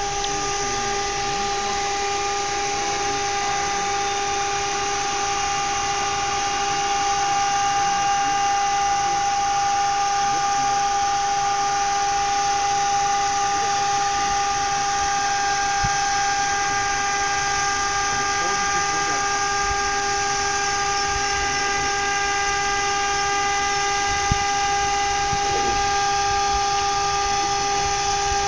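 A steady, high, unwavering whine with overtones from an off-road vehicle's engine and drivetrain, crawling down a steep slope in low gear. A single sharp click near the end.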